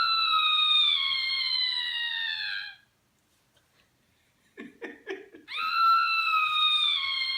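A high-pitched scream held for about three seconds and falling slowly in pitch. It is given on request and repeated about five seconds later, with a few short low sounds in between.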